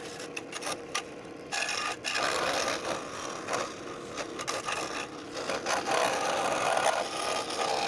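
Wood being rasped and rubbed in uneven strokes, quieter for the first second or so, as a wooden workpiece is cut or smoothed.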